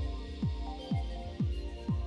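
Electronic music with a steady kick-drum beat, about two beats a second.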